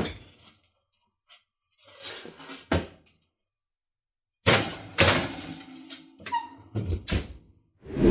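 Kitchen oven door opened and a foil-lined metal pan slid onto the oven's wire rack: a few knocks, then a stretch of metal scraping, clattering and foil crinkling, with heavy thunks near the end as the pan settles and the door is shut.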